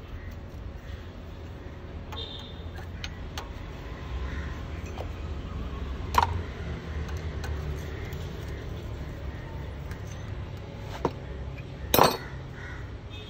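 Hand tools clinking against the clutch adjuster and engine casing of a Piaggio Ape during clutch adjustment. There are small metal taps throughout and sharp clinks about six and twelve seconds in, the one near the end the loudest.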